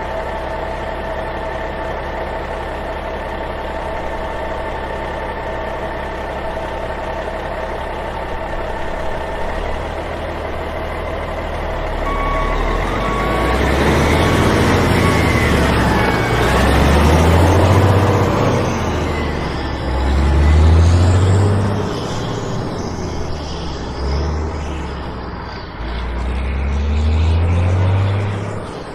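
Heavy truck engine sound, dubbed over a toy truck: a steady running hum at first, then from about halfway a series of revving swells that rise and fall, with a short run of beeps as they begin.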